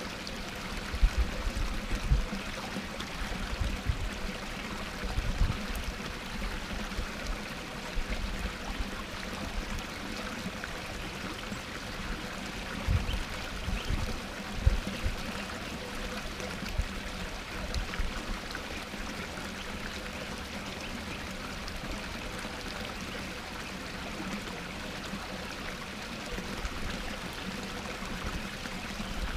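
Small rock waterfall splashing steadily into a garden pond. A few short low bumps stand out about a second in, around 13 s and around 15 s.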